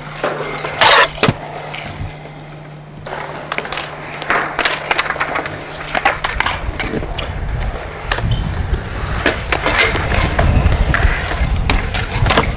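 Stunt scooter wheels rolling on concrete, with sharp clacks of the deck and wheels hitting the ground, the loudest a pair about a second in. From about eight seconds in the rolling turns into a steady low rumble.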